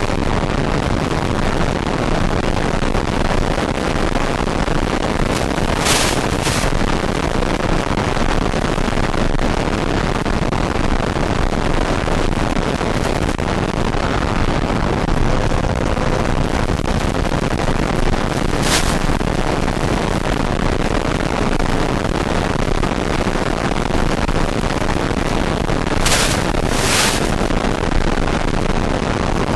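Steady rushing noise of a model jet in flight, heard from its onboard camera: motor and airflow noise mixed with wind on the microphone. It is broken by a few brief high-pitched hissing bursts.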